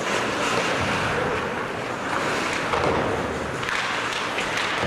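Ice hockey play on a rink: a steady noisy wash of skates cutting the ice, with a few short sharp clacks.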